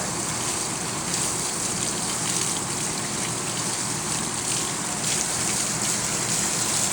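Steady, even hiss with no distinct knocks or tones, as of running water or rain.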